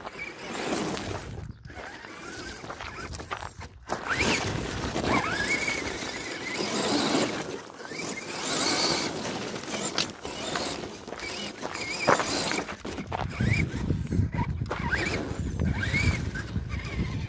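Electric motor of an RC crawler truck whining in short glides that rise and fall in pitch as the throttle changes, over the crunch of its tyres on loose stones.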